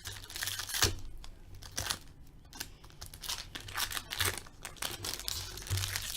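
A trading card pack's wrapper being torn open and crinkled by hand, in irregular crackling bursts.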